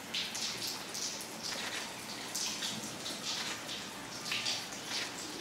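Running water splashing irregularly, several splashes a second, as a tortoise pond is slowly filled with fresh water.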